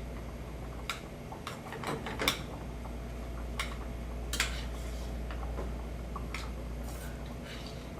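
A stirring utensil knocking and scraping against a pot as macaroni is mixed with cheese and sour cream: irregular clinks, most of them in the first half, over a steady low hum.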